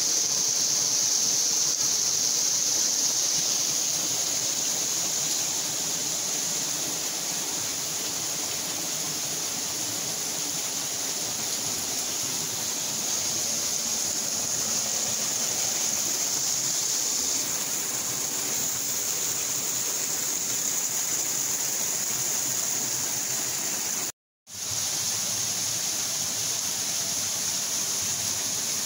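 Half-frozen waterfall flowing strongly: a steady, even rush of falling water, broken by a momentary gap about three-quarters of the way through.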